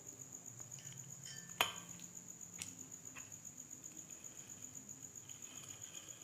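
Ceiling fan parts being fitted together by hand: one sharp click about one and a half seconds in and two lighter clicks soon after. A cricket chirps steadily throughout.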